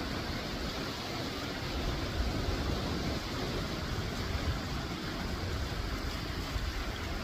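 Sea surf washing over a rocky shore at low tide, a steady rush of breaking waves, with wind rumbling on the microphone.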